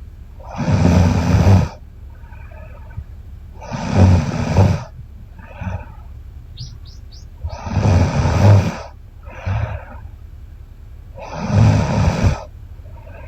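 A woman snoring in her sleep: four loud snores about every four seconds, with softer breaths between them.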